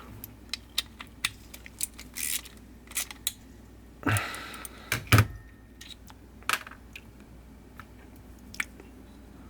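Irregular small clicks and clinks of carburetor parts being handled and fitted back together, with short scraping rustles and a sharp louder click about five seconds in.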